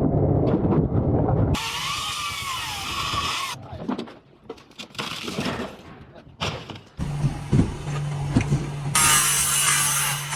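Power tools running in short spells, with scattered knocks between them and a steady low hum near the end.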